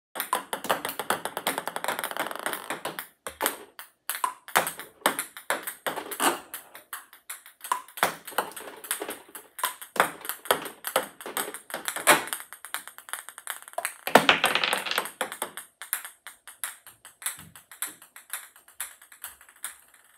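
Ping pong balls bouncing and being struck with a paddle: a rapid, irregular run of light clicks, with two denser clattering stretches, near the start and about three-quarters of the way through.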